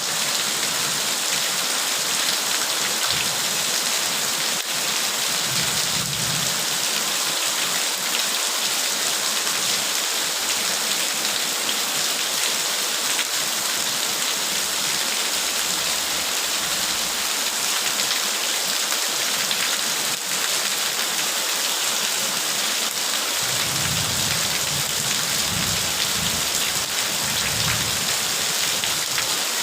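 Steady heavy rain falling, a dense, even hiss. A low rumble comes about six seconds in and again for several seconds near the end.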